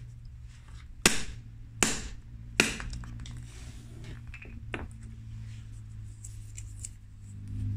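Three hard hammer blows about three-quarters of a second apart, a steel hammer head striking a cast Smooth-On Task 12 tooling-resin disc resting on a brick. The first blow is the loudest. A lighter knock follows a couple of seconds later.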